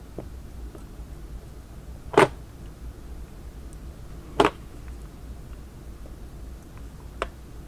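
Two sharp knocks about two seconds apart as a taped pack of lithium-ion cells is handled on a work tray, with a faint click near the end, over a low steady hum.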